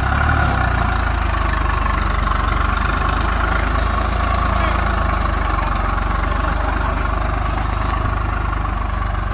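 Swaraj 744 FE tractor's three-cylinder diesel engine running steadily, loud and low with an even pulse.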